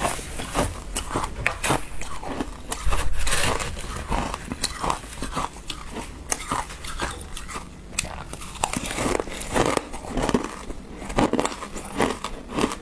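Close-miked crunching of shaved ice being bitten and chewed: a quick run of sharp crackles and crunches, with a longer, louder rush about three seconds in.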